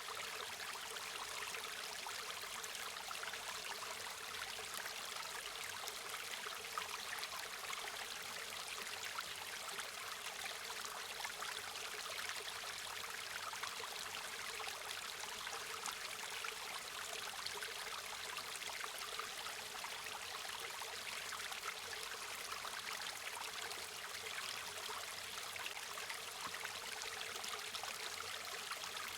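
River water flowing and trickling: a steady splashing rush with fine droplet patter, bright and thin, with little deep rumble.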